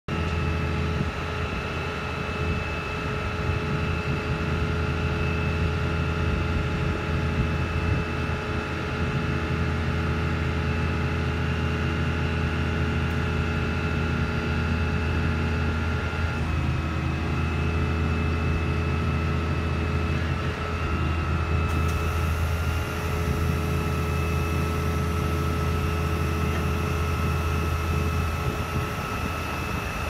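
Asphalt paver's diesel engine running steadily, with a steady high whine over its low hum while the hydraulic screed is drawn in.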